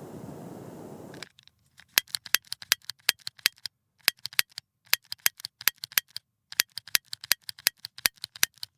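Handheld gas lighter: a steady hiss of gas that cuts off about a second in, then many sharp clicks from the lighter's igniter in quick runs of four to six with short pauses between.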